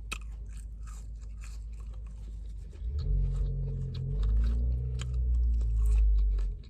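A person chewing and biting food, mostly a chicken burger, with many short wet mouth clicks. From about three seconds in, a low hum that shifts pitch once is the loudest sound for about three and a half seconds, then stops.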